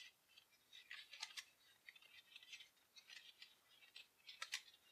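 Faint light clicks and scraping of small game cards being handled and slid between the hands, in short irregular touches.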